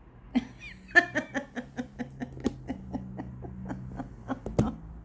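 A woman laughing in a long run of short, quick laughs, about five or six a second, with a sharp knock near the end.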